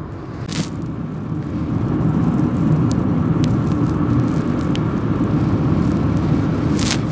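Car driving along a paved mountain road: a steady low rumble of engine and tyres, with a couple of brief hissing bursts, one just after the start and one near the end.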